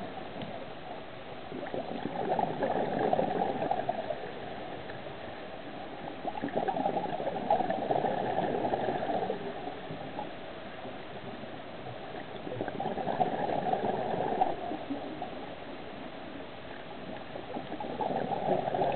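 Scuba diver's exhaled air bubbling out of the regulator, heard underwater, in gurgling bursts about every five to six seconds with the breathing, four times, with quieter bubbling between.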